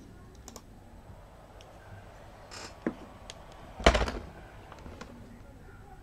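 A laptop being handled: a few light plastic clicks, then one louder knock about four seconds in.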